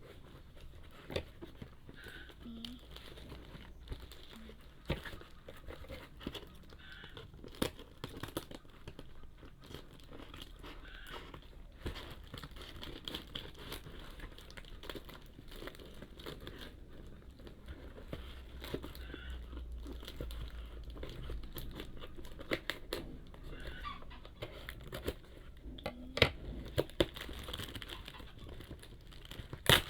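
Parcel packaging crinkling and tearing as it is unwrapped by hand, with irregular rustling and sharp clicks.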